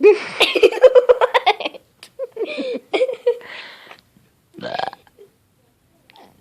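A person burping on purpose: one loud, drawn-out, rattling burp lasting nearly two seconds, then shorter sounds about two seconds and four and a half seconds in.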